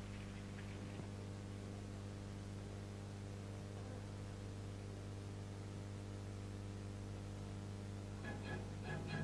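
Steady low hum and hiss of an old newsreel soundtrack. About eight seconds in, orchestral music with strings begins.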